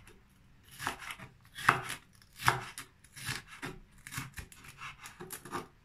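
Kitchen knife slicing a red kapya pepper into thin julienne strips on a wooden cutting board: about a dozen uneven knife strokes knocking on the board, the loudest about two seconds in.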